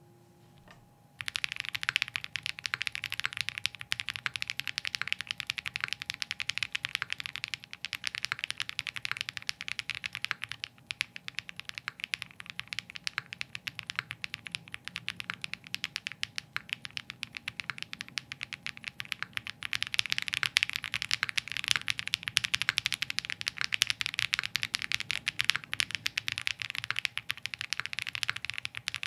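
Fast, continuous typing on a CKW 80 mechanical keyboard with stock KTT Hyacinth linear switches, a POM plate and GMK keycaps, starting about a second in.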